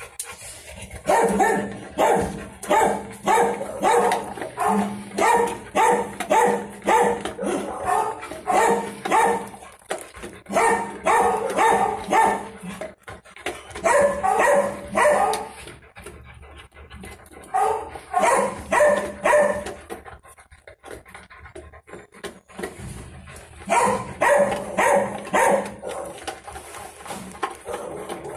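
A dog barking over and over, about two to three barks a second, in runs broken by a few pauses of a second or more.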